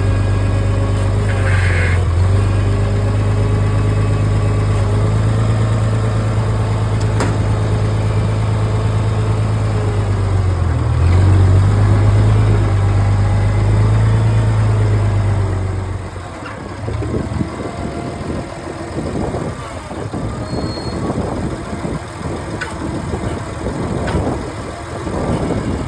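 Tractor engine running at a steady speed, with a brief dip and pick-up about 11 seconds in. About 16 seconds in the steady hum gives way to a quieter, irregular clatter.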